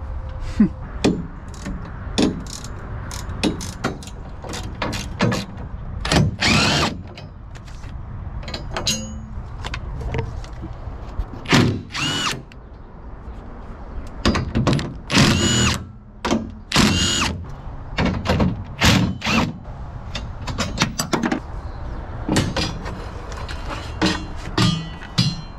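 Handheld power tool, drill-type, run in short bursts of about a second each, its whine rising as it spins up, with clanks and clicks of metal parts being handled between bursts: the fasteners holding a steel jig to a car body are being driven out.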